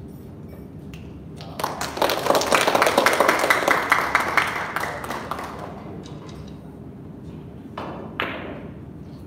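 A small group clapping for about four seconds, starting suddenly and fading out, then two sharp clicks near the end.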